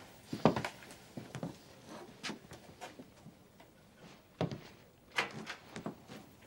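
Footsteps and scattered knocks on wooden floorboards and a door in a small room, irregular, the loudest about half a second in and again around four and a half and five seconds in.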